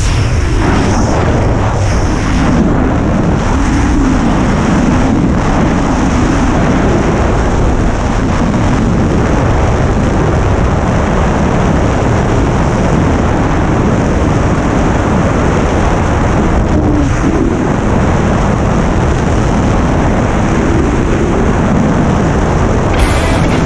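Loud, steady wind rush buffeting the camera microphone in skydiving freefall.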